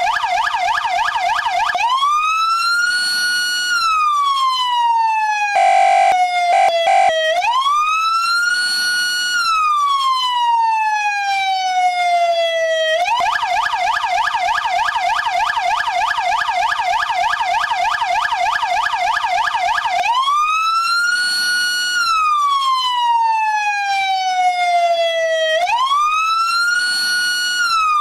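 Mastercom B electronic police siren sounding in wail mode: a tone that climbs, holds briefly and then slowly falls, over and over. In the middle it switches to a lower, rapidly pulsing tone for several seconds, and about six seconds in a few brief harsh blasts break in.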